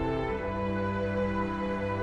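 Background music: sustained, sombre orchestral chords, changing chord about a third of a second in.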